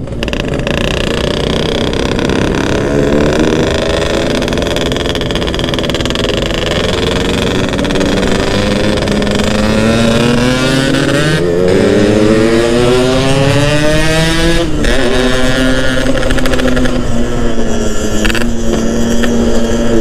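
Yamaha RX-King's two-stroke single-cylinder engine pulling through a gear under acceleration. Its note climbs steadily for several seconds, drops suddenly at a gear change about 15 seconds in, then holds steady while cruising.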